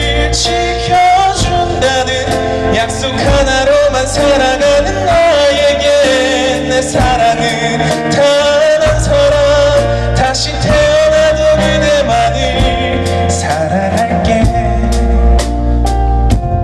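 Live rock band playing: a singer carries a wavering melody over electric guitar, bass guitar, keyboard and a drum kit keeping a steady beat.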